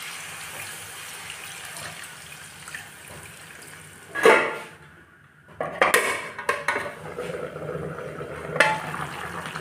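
Water poured into a hot wok of frying pork curry, hissing and bubbling as it comes to the boil, with sharp clanks of metal against the pan about four seconds in and again from about six seconds on.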